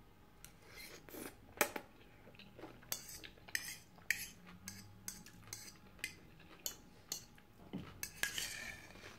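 Metal fork clinking and scraping against a ceramic bowl while scooping up noodles: sharp, irregular clicks about one or two a second, the loudest about one and a half seconds in.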